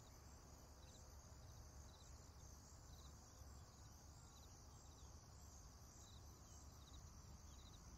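Near silence: faint room tone with a low hum and a few very faint, high chirps scattered through it.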